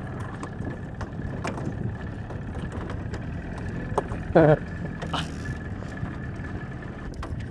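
Boat motor running at trolling speed under wind and water noise, with a faint steady whine throughout. A short wavering cry about four and a half seconds in is the loudest sound.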